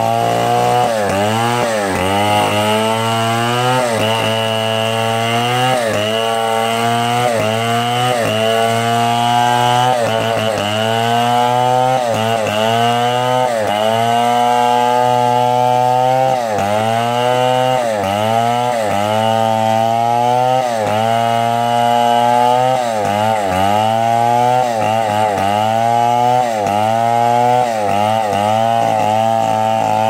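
Stihl two-stroke chainsaw running at high revs while ripping a log lengthwise, its engine note dipping under the load of the cut and picking back up over and over.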